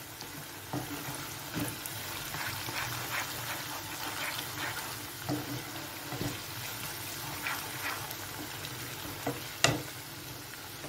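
Sliced onions sizzling in hot oil in a non-stick kadai, frying toward a light golden brown, stirred with a wooden spatula that scrapes now and then. A sharper knock comes near the end.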